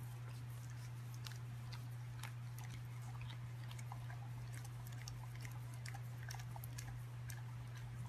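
Noisy chewing: a rapid, irregular run of small wet clicks and crunches, over a steady low hum.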